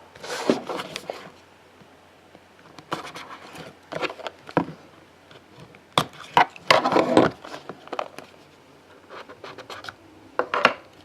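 A box of football trading cards being opened and its pack handled by hand: scratching and rubbing of packaging in irregular bouts, with a few sharp clicks, loudest about six to seven seconds in.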